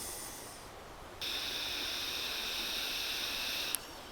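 Fly reel's click-and-pawl drag buzzing steadily as line is pulled off it, starting abruptly about a second in and stopping sharply with a click after about two and a half seconds.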